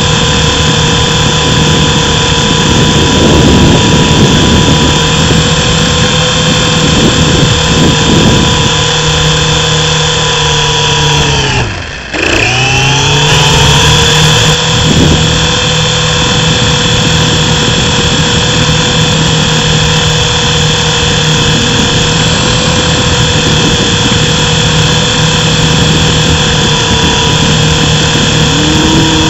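Small electric RC helicopter's motor and rotor whining steadily, heard close up. About twelve seconds in, the whine drops sharply in pitch as the rotor slows almost to a stop, then climbs straight back up to the same steady pitch as it spins up again.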